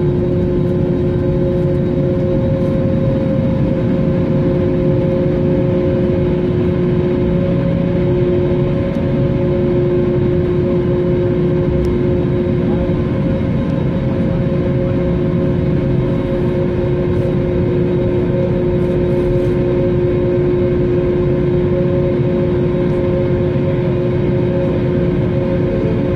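Cabin noise of an Airbus A321neo taxiing on the ground: the engines idling as a steady low rumble, with two held humming tones over it.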